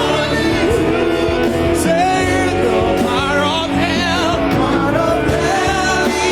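Church choir singing a gospel song with live band accompaniment.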